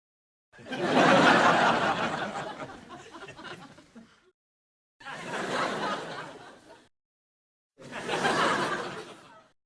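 Laugh-track crowd laughter in three separate bursts with dead silence between them. The first and loudest swells about half a second in and dies away over about three seconds, then two shorter bursts follow.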